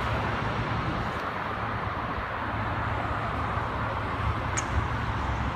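Steady low rumble and hiss of a roadside scene with stopped vehicles idling nearby, with a short high-pitched chirp about four and a half seconds in.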